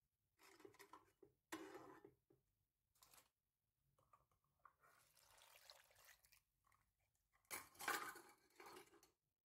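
Water poured from a plastic cup into a pressure cooker pot onto sliced tomatoes and spices, among soft handling knocks and rustles. A louder clatter comes near the end.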